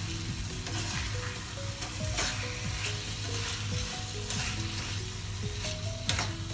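A metal spatula stirring and scraping chicken pieces through a yogurt-and-cream gravy in a pan on a gas stove, in irregular strokes, over a steady sizzle from the pan.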